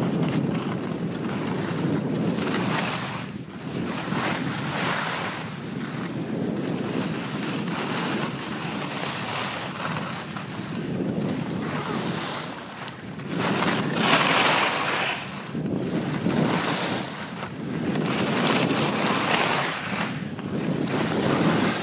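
Wind rushing over an iPhone microphone tucked under a ski helmet during a ski run, together with skis sliding on snow. The rushing noise swells and eases every few seconds.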